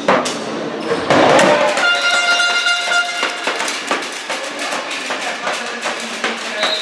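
Handball game sounds in a sports hall: a hard throw and ball knocks at the start, a burst of shouting and cheering as the penalty goes in, and a held musical note for about a second and a half. Near the end a referee's whistle blows to restart play with the throw-off.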